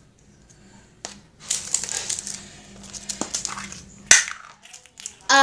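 Small plastic surprise-egg capsule and toy being handled and unwrapped: crinkling, rustling plastic with sharp clicks, the loudest click about four seconds in.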